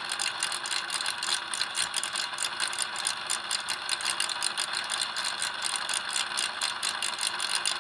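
A robot vacuum's replacement 12-volt suction motor and fan running steadily on 12 volts. It is a little noisy, with a fast, even rattle of about eight clicks a second over a steady whir.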